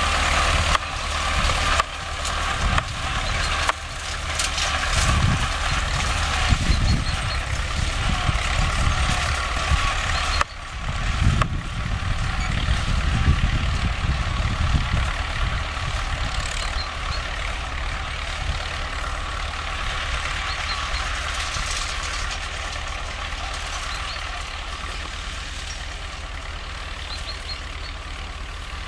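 A T-28 tractor's T-40 diesel engine running steadily as it pulls a GVK-6 wheel rake through cut hay, getting gradually fainter over the second half as the tractor moves away.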